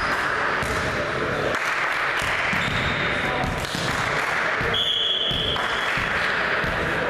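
Echoing indoor volleyball-hall ambience between rallies: voices of players and spectators chattering with scattered knocks on the wooden floor, and a brief high-pitched tone about five seconds in.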